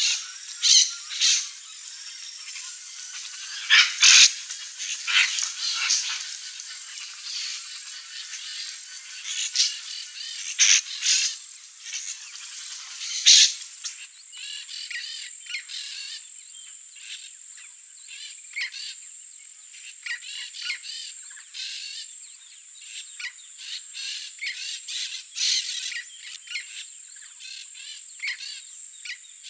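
A flock of peach-fronted parakeets giving many short, scratchy calls, the loudest bunched in the first half, over a steady high-pitched whine.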